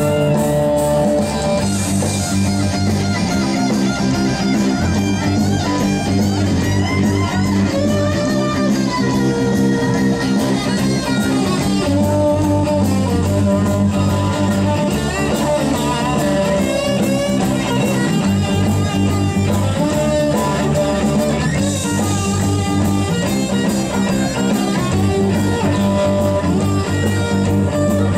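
Live rock band playing an instrumental passage, with no singing. Electric guitars played through Marshall amps drive a steady rhythm over bass guitar and drums.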